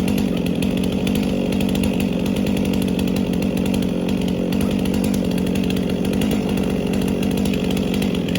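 Chainsaw running steadily at high revs with no let-up, cutting through cherry wood.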